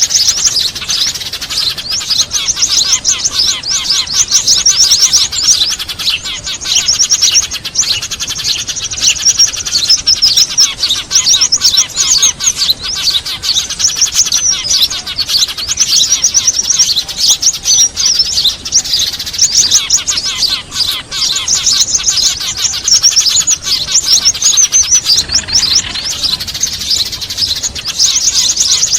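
Dense, fast chirping chatter of many small birds, a noisy bird-trapping lure (suara pikat) recording that mixes Eurasian tree sparrows with other small songbirds. The chirps run on without a break.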